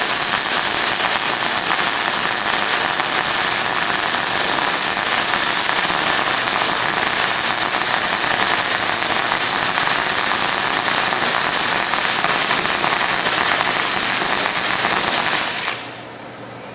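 MIG welder arc running steadily as a test bead is laid on the steel shell of a rusted Flowmaster muffler, to check the welder's settings; the arc cuts off suddenly near the end.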